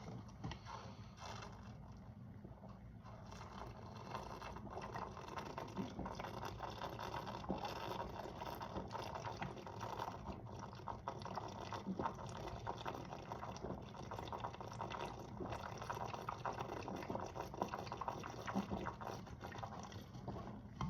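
Carbonated soda being chugged from a bottle: a steady, faint, fine fizzing crackle of bubbles and liquid, a little louder from about four seconds in.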